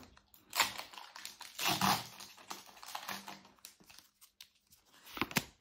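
Pokémon trading cards and a foil booster-pack wrapper being handled: several short rustles and card-on-card flicks, with a few sharp clicks near the end.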